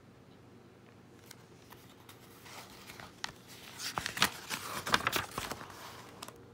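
Pages of a brand-new paperback picture book being turned by hand: crisp paper crinkling and crackling, faint at first, thickening about two and a half seconds in and loudest a little past the middle.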